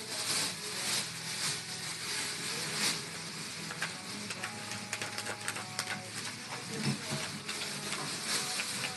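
Paper crackling and tearing in quick small ticks as a parrot shreds strips with its beak.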